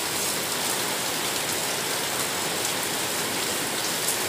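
Heavy rain falling steadily: a dense, even hiss with scattered drop ticks.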